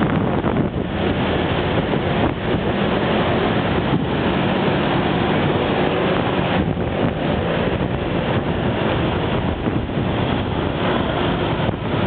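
Steady rushing wind noise on the microphone of a camera riding on a moving bicycle, with city street traffic underneath.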